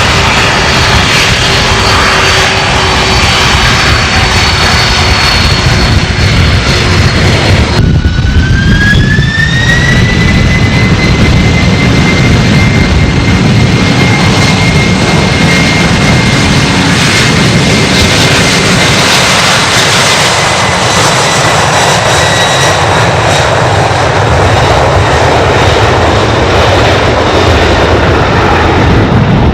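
Jet plane taking off: loud, steady jet engine noise with high turbine whines over it. About eight seconds in, a whine rises in pitch, then holds steady.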